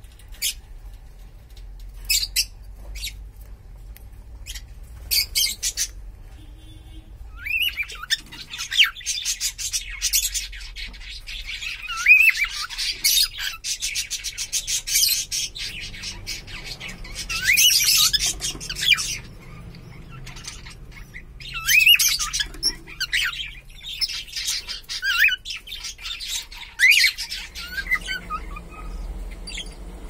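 Caged cockatiels chirping and squawking: a few short, sharp calls in the first seconds, then near-continuous chatter of chirps and quick up-and-down whistles from about seven seconds in.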